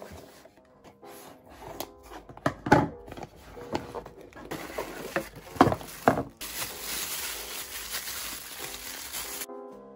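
Cardboard box being opened and handled: several knocks and scrapes as the inner box slides out, then from about six and a half seconds in a steady crinkling of the plastic bag wrapped around the phone stand as it is pulled out.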